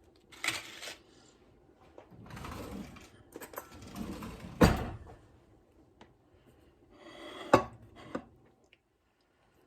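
Tortilla chips and a dinner plate being handled: brief rustling and scraping, with two sharp knocks of dishware, one about halfway through and one later.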